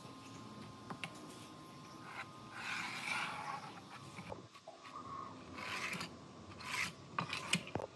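A pen drawn along an aluminium straightedge on a plywood sheet, and the straightedge slid across the board: a few faint scratchy rubbing strokes, the longest a second or so, with light ticks near the end.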